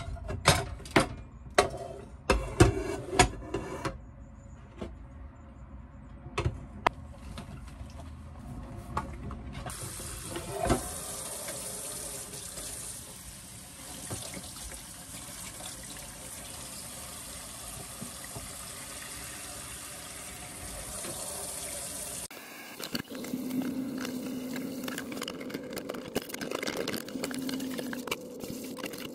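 Dishes being washed in a kitchen sink: metal tongs and utensils clatter sharply against a pan in the first few seconds, then the tap runs steadily as bowls and a pot are rinsed and handled under the water.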